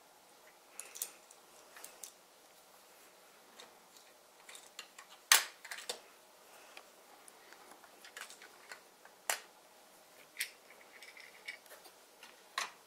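Small plastic brick-toy minifigures and parts being handled and set down: scattered light clicks and taps, the loudest a sharp click about five seconds in.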